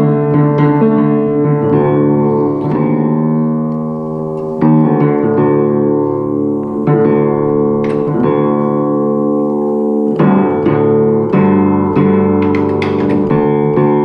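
Acoustic upright piano being test-played after tuning: octaves and fifths on the D's, struck one after another up the keyboard and left to ring, to check that the tuning is clean. The intervals come every second or two, with a quicker run of several strikes near the end.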